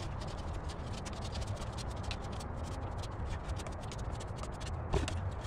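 Light scratching with many small, quick clicks from hands working on and around an MDF box, over a low steady rumble.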